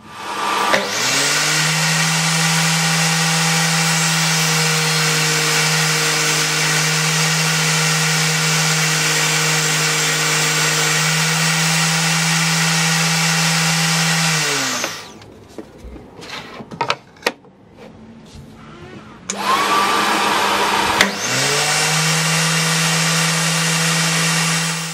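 DeWalt DWE7492 table saw's universal motor starting, running at a steady speed for about fourteen seconds and winding down. A few knocks follow, then the saw starts again and runs steadily.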